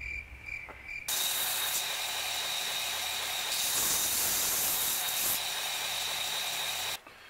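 2x72 belt grinder grinding an AEBL steel knife blank held flat against the belt on the flat platen, taking off the burr left from profiling: a steady hiss with a thin whine, starting suddenly about a second in and stopping suddenly near the end.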